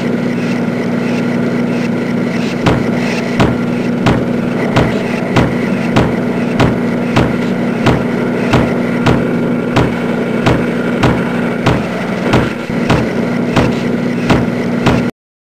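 Factory machinery sound effect: a steady mechanical hum with rhythmic stamping clanks, a conveyor and stamping press at work. The clanks begin a couple of seconds in and repeat nearly twice a second. Everything cuts off suddenly near the end.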